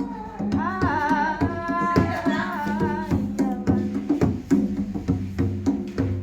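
A singer holds a long wavering note over hand-drum percussion and a bass line, then the drums keep a steady beat.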